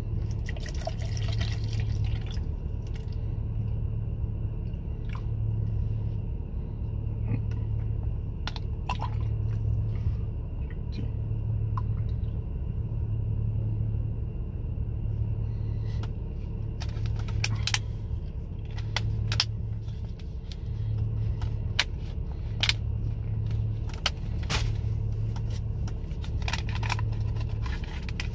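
Water pouring from a plastic bottle into a plastic protein shaker for the first two seconds or so, then scattered clicks and knocks of the shaker being handled, thickest in the second half. Under it all is a low car-interior hum that throbs about every two seconds.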